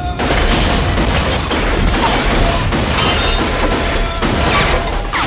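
Movie shootout sound mix: handgun shots fired in quick succession, with glass bottles shattering and crashing, dense and loud throughout, over a music score.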